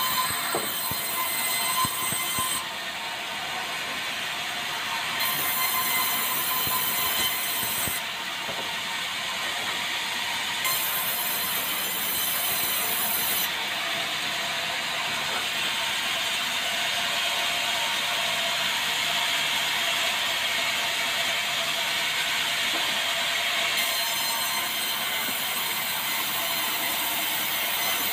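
Sawmill band saw running steadily and cutting debarked meranti timber fed along a roller table, with machine rattle over the cut.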